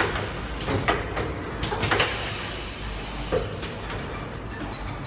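Automatic rotary screen printing machine running: a steady low hum with a series of sharp clacks and knocks, most of them in the first two seconds.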